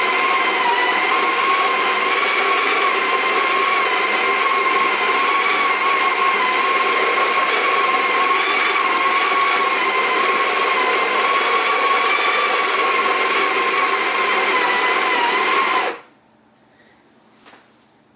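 Breville Smart Grinder Pro conical burr grinder grinding a dose of espresso beans: a steady motor whine that cuts off abruptly about sixteen seconds in, at the end of its roughly 18-second grind time. A faint click or two follows.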